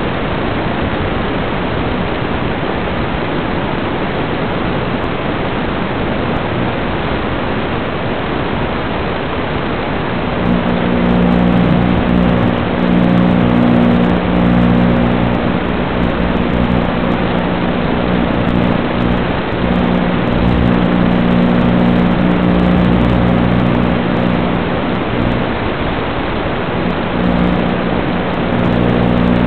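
Steady hiss of static on the audio track of an analog FPV video link, recorded by the DVR. About ten seconds in, a low steady hum joins it and comes and goes.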